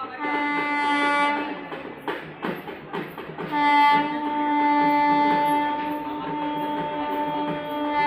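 WAG-9 electric freight locomotive's horn sounding twice: a short blast of about a second, then a long steady blast from about three and a half seconds in that holds for over four seconds.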